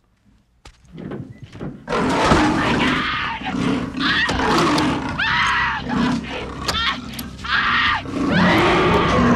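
A leopard snarling and roaring as it attacks, with a woman screaming over it in a few long, rising-and-falling screams. The sound starts suddenly about a second in, after a couple of sharp knocks.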